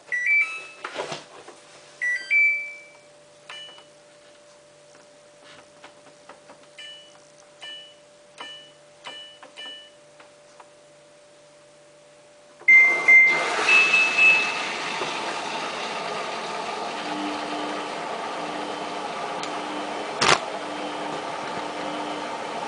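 Samsung WF8804RPA washing machine: a series of short electronic beeps from its control panel. About halfway through, after one more beep, the machine starts with a loud, steady rushing, running noise and a low hum that comes and goes. A single sharp click sounds near the end.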